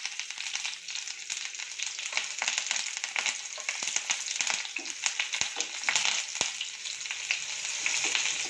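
Sliced shallots, curry leaves and green chillies sizzling and crackling in hot coconut oil in a non-stick kadai, with constant small pops: the tempering stage of a curry. A wooden spatula starts stirring them near the end.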